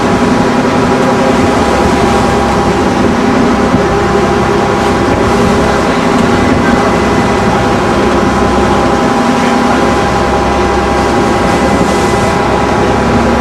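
Ferry boat engine running steadily and loudly, its hum unchanging throughout.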